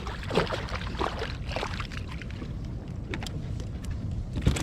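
Irregular water splashes and knocks from a small fishing boat over a steady low rumble.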